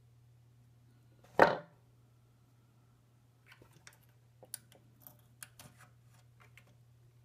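A brief loud thump about a second and a half in, then a run of small clicks and scratches as the bent leads of a replacement tantalum capacitor are pushed into their holes in the synthesizer's circuit board.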